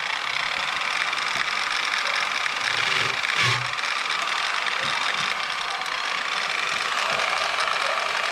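Handheld grinder running steadily against a new dirt late model racing tire, cutting grooves into the rubber tread. It cuts in suddenly and keeps a steady whir.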